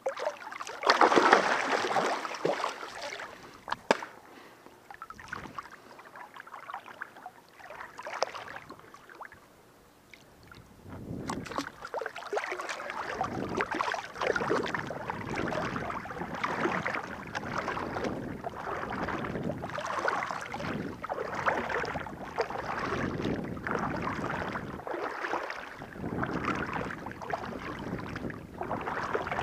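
Water splashing as a bowfishing arrow and its line are pulled out of the river weeds, then a quieter stretch with a few small knocks. From about eleven seconds in, continuous uneven sloshing of a person wading through shallow river water.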